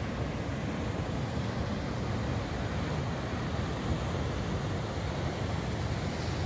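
Sea surf washing steadily onto the shore, with wind rumbling on the microphone.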